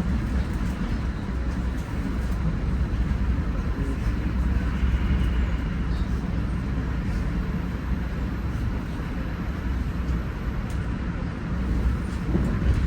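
Steady low vehicle rumble with a noisy hiss over it.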